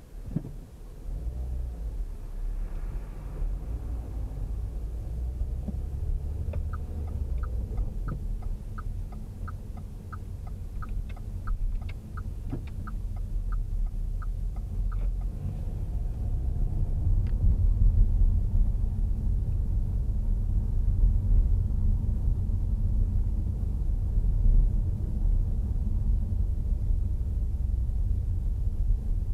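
Car engine and road rumble heard from inside the cabin as the car moves off and drives through town, growing louder in the second half as it picks up speed. In the middle, for about eight seconds, the turn indicator ticks about twice a second while the car makes a turn.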